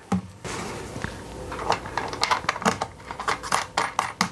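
Irregular light clicks, taps and small rattles of hardware being handled while a switch is fitted into the battery box's front panel.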